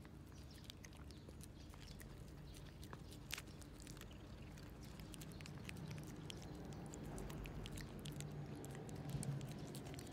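A cat eating, chewing with many small, irregular clicks over a low steady hum.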